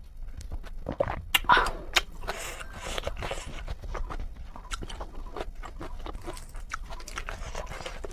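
Mouth noises of someone eating spicy noodles: wet slurps, chewing and smacking, heard as irregular clicks and short hissy slurps.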